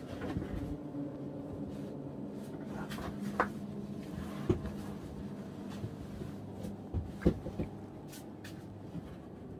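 Knocks and scrapes of a person crawling through a tight rock passage in a cave, with several sharp knocks scattered through it.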